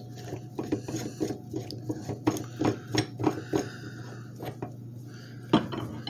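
Steel parts of a Maddox 5-pound slide hammer clicking and scraping in the hand as the hook adapter is fitted onto the shaft: a run of small irregular metal clicks, with a sharper knock near the end. A steady low hum runs underneath.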